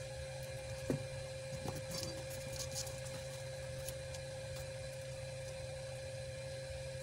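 A steady electrical hum with a thin constant whine over it, and a faint click about a second in, with a few more soft clicks as wires are handled during soldering.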